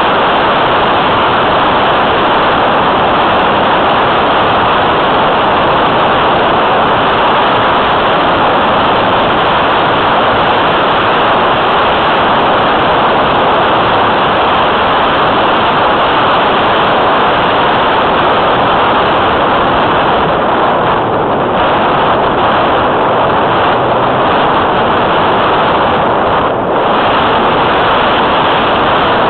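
Loud, steady rush of airflow over a camera microphone mounted on a flying RC model plane, an even roar with no clear motor tone. It dips briefly twice near the end.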